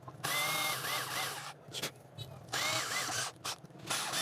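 Small electric drill running in short bursts while drilling a small hole, its whine dipping and recovering in pitch as the bit bites.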